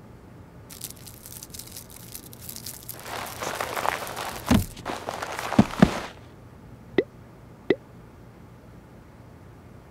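Rustling and scuffling with several dull thumps, then two short sharp clicks less than a second apart.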